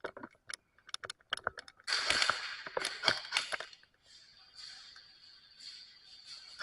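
Airsoft guns firing: several single sharp shots, then a dense burst of rapid fire about two seconds in that lasts roughly two seconds, followed by fainter noise.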